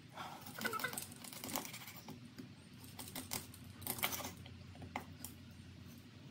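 Kitchen knife cutting a raw fish steak on a wooden cutting board: scattered knocks and taps of the blade against the board as the skin is cut away and the flesh is sliced into pieces, the loudest about four seconds in.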